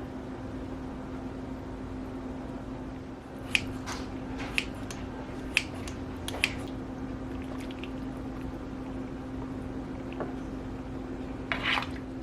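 A steady low hum with about five sharp clicks in the middle, like utensils tapping against dishes.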